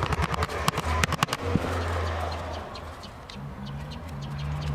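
A sheet of white paper being folded and creased by hand, giving sharp crackles that come thickest in the first second and a half.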